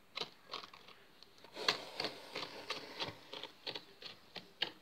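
Plastic toy horse figures tapped and shuffled over a gritty sand arena floor to act out a trot: a string of light clicks and scuffs, sparse at first, then quicker after about a second and a half.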